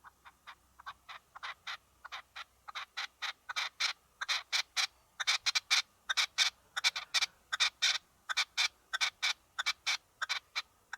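House sparrow giving its repeated cheep call, about three short chirps a second, growing louder over the first few seconds and then keeping up an even rhythm.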